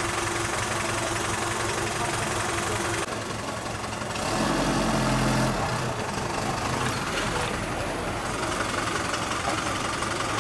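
A motor vehicle's engine running amid street noise, its hum louder for about a second near the middle.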